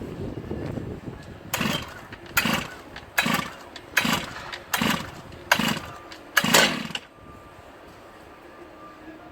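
Stihl MS880 121.6 cc two-stroke chainsaw being pull-started: seven quick, evenly spaced yanks on the starter cord, each a short burst of engine noise, the last a little longer. The engine does not keep running.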